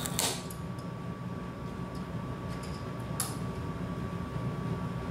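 Small DC tape-drive motor of a cassette-deck mechanism running steadily while overdriven on pulsed DC from a variac and bridge rectifier: a steady hum with a thin, even whine. Two short sharp clicks come about a quarter second in and about three seconds in.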